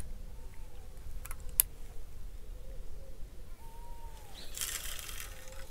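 Distant bird calls: a couple of drawn-out, arching mewing notes over a low steady rumble, with two sharp clicks about a second and a half in and a short rustle near the end.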